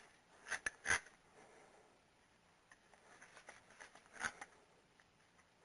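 A few faint, scattered clicks and light knocks of hand tools being handled: a quick cluster about half a second to a second in and another about four seconds in.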